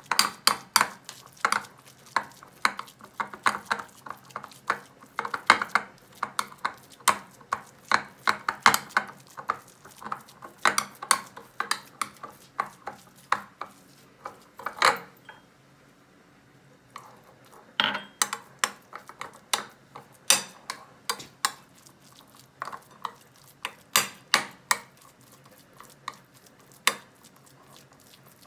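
Metal spoon stirring and scraping against a ceramic bowl, clinking several times a second as it works grated cheese, black pepper and a little pasta water into a paste. The clinking stops for about two seconds just past the middle, then goes on.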